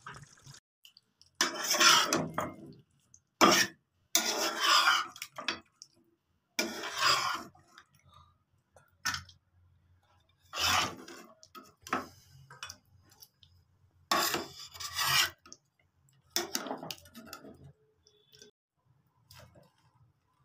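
Wooden spatula scraping through chicken curry in a nonstick pan and scooping it into a steel bowl: a series of about eight short scrapes and clatters with pauses between.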